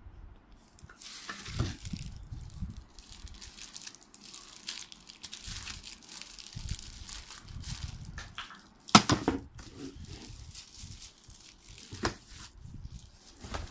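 Packaging being handled: crinkling and rustling of plastic and cardboard as vacuum cleaner parts are taken out of the box, with a sharp knock about nine seconds in and a lighter one about three seconds later.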